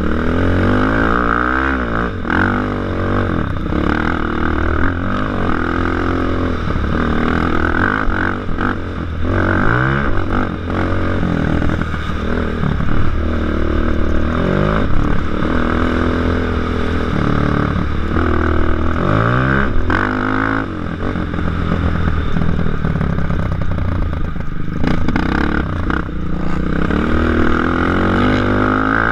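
Racing ATV engine heard from on board, running hard, its pitch climbing again and again as the rider accelerates out of turns and through the gears.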